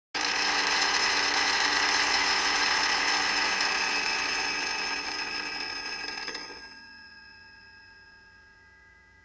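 Electric blender switched on and running steadily at full speed, its motor whirring. It stops about six and a half seconds in, and a fainter steady tone fades away.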